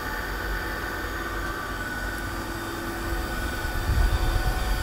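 Steady hum and whine of running machinery in a yacht's engine room, several fixed tones over a low rumble. The rumble grows louder and more uneven about four seconds in.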